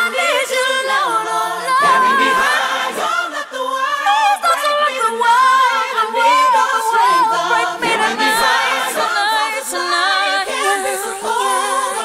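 Unaccompanied singing from an isolated vocal track: a choir holding layered harmonies under a lead voice singing wordless melismatic runs with vibrato, no instruments.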